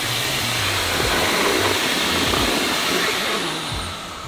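MetroVac electric air pump blowing air through a hose into an air mattress, a loud steady rush with a high motor whine. Near the end the whine falls and the pump winds down as the portable power station running it overloads.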